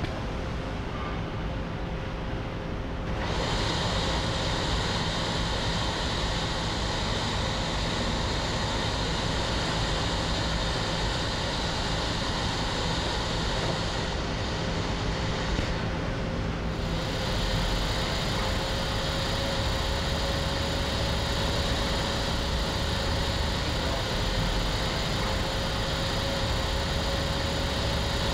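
Steady hiss of compressed air rushing through an Airfloat air-caster turntable's air casters and pneumatic drive as the table is floated and turned. The hiss grows fuller about three seconds in as the air is opened, and briefly thins in its highest part around the middle, over a faint steady hum.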